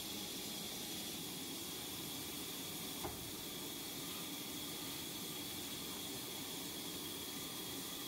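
Large sawmill band saw running with a steady hissing whir while a heavy wooden slab is fed into the blade. A single brief click about three seconds in.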